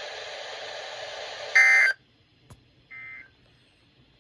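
Radio static hiss. It cuts off as the Emergency Alert System end-of-message data tones begin: short bursts of buzzy digital data signal, the first loud and the second fainter about a second later, marking the end of the alert.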